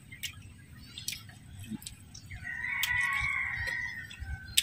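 A rooster crowing: one long crow starting a little over two seconds in and lasting about two seconds. A few sharp clicks come before it.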